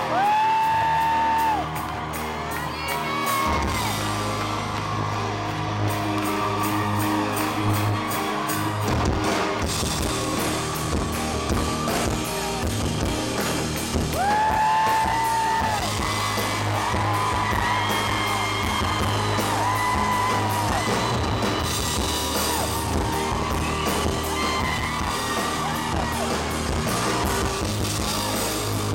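Live rock band playing with electric guitars and drums, a lead singer holding several long high notes over it, in a large hall.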